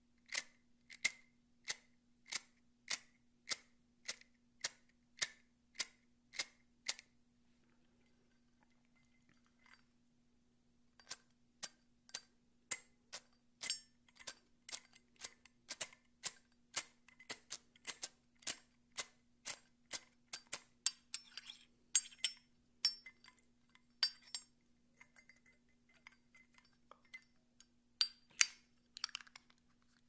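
Zippo Armor lighter lid flicked open and snapped shut over and over, a steady run of metallic clicks about one every half second, its opening clunk muted by the Armor's thicker case. After a short pause, two Zippos (a Classic Street Chrome and the Armor) are clicked open and shut together, giving faster, overlapping clicks with brighter metallic clinks partway through.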